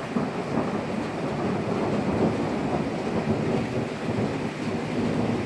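Thunderstorm: rain falling with a steady low rumble, no sharp claps.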